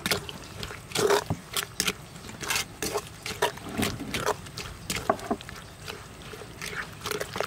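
Wooden pestle knocking and scraping in an earthenware mortar as wet chilies and shallots are pounded and mixed: a string of irregular knocks.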